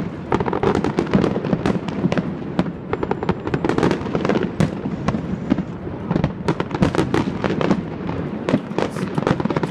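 Fireworks display with aerial shells bursting overhead: a dense, irregular run of bangs and crackles, several each second.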